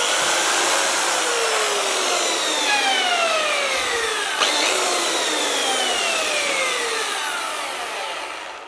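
Bosch PBS75AE belt sander running with a weird sound: a loud motor noise with whining tones that slide down in pitch, starting over about halfway through, before it fades out near the end. It points to a fault in the drive mechanism, where a bad drive belt was found.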